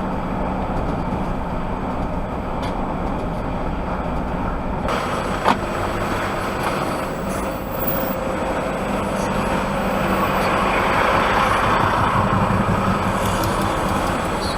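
A car being driven, heard from inside: steady engine hum and road noise, with one sharp click about five and a half seconds in. The noise grows a little louder from about ten seconds in.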